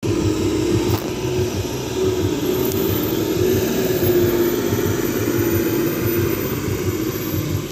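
Tata tipper truck's diesel engine running steadily as the truck drives and turns over rough ground, a low pulsing rumble with a steady whine above it.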